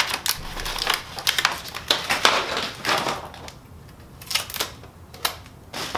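Crackling of a protective paper sheet being pulled off a new printer image transfer belt unit, with irregular clicks and knocks from handling the belt unit's plastic frame. The sounds come thickly at first and thin out to a few clicks after about three seconds.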